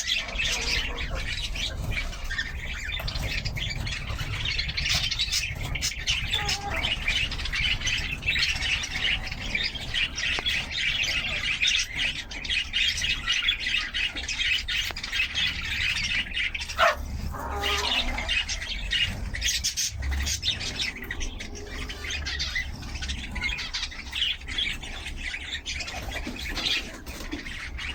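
Many birds chirping and squawking at once in a dense, unbroken chatter, over a steady low rumble.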